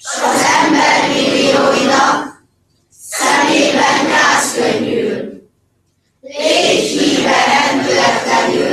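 A group of schoolchildren and adults reciting a Hungarian poem in unison. They speak it in three phrases of about two seconds each, with short pauses between.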